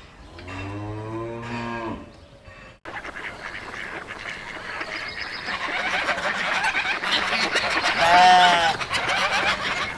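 A cow moos once, a low drawn-out call ending about two seconds in. After a short break, a flock of geese chatters, growing louder, with one loud goose honk near the end.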